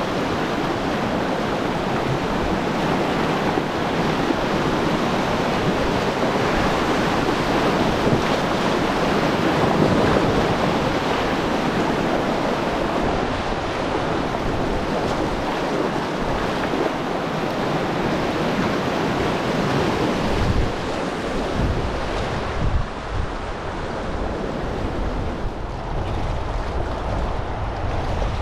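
Rushing river whitewater, a steady loud wash of moving water. In the last several seconds there is low buffeting on the microphone.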